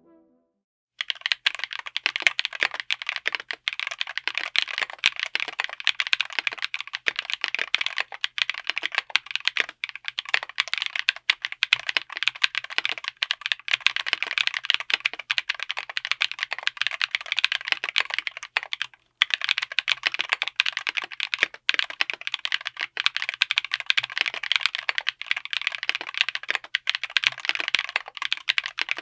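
Fast typing on a full mechanical keyboard fitted with Epomaker Peace Lily linear switches in an FR4 plate: a dense, continuous run of keystrokes that starts about a second in and pauses briefly a little past the middle.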